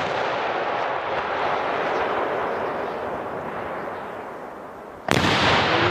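16-inch Del Vicario aerial firework shell: a long rushing noise that slowly fades while the shell climbs after its mortar launch, then about five seconds in the shell bursts with a sudden loud bang.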